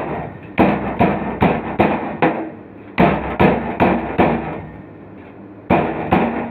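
Rolling pin beating a freshly cooked, crisp lachha paratha on the tawa, smashing it so the layers break up flaky. The blows come in quick runs of several, about three a second, with short pauses between runs.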